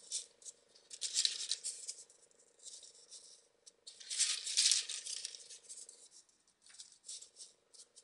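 Folded paper origami modules rustling and rattling as fingers rummage through a loose pile of them on a wooden table and fit them onto the model, in several short irregular bursts.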